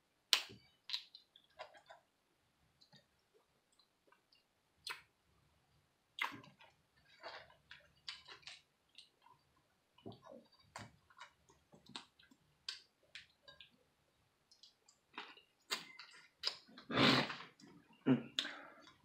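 Boiled crawfish shells cracking and snapping as they are pulled apart by hand: irregular sharp clicks and crackles, with a longer, louder stretch near the end.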